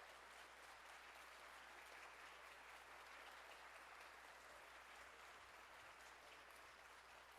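Faint audience applause: an even patter of many hands clapping.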